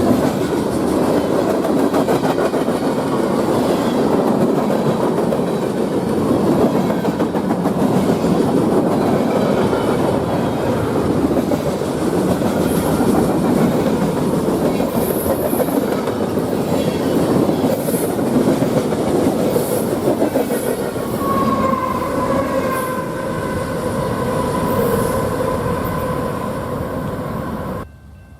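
A train rolling past with a steady rumble and the clatter of its wheels over the rails. About three quarters of the way in, a thin steady wheel squeal joins in. The sound cuts off abruptly near the end.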